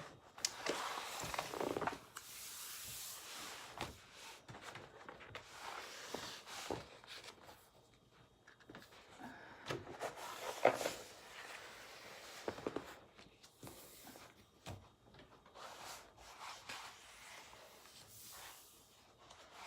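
Packaging and a rolled diamond painting canvas being handled and unrolled: irregular rustling and rubbing with scattered small knocks and clicks.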